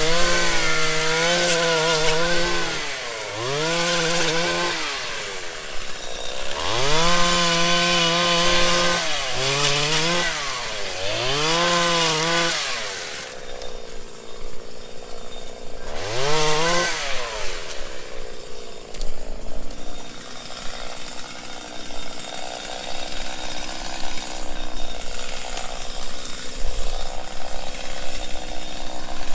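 Two-stroke chainsaw cutting limbs: it is revved up to full speed, held through a cut and let back down about six times over the first seventeen seconds. After that it runs quieter and steadier at a lower pitch.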